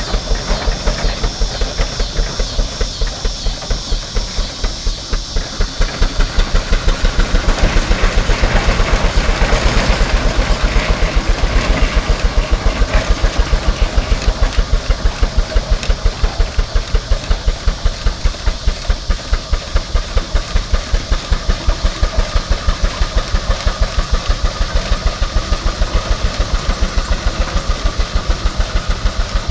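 Port Huron steam traction engine chuffing steadily as it drives and climbs a hill under load, with steam hissing between the beats. The exhaust beats are rapid and even, and grow louder about six seconds in.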